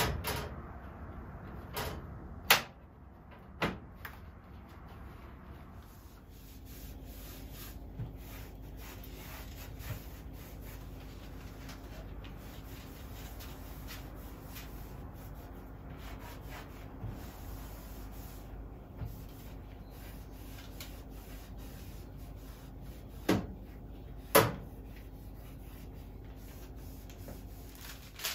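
Clicks, knocks and rubbing from a kitchen range hood being handled as its exhaust filter is changed, with the sharpest knock a few seconds in and two more near the end. A steady low hum sets in about six seconds in.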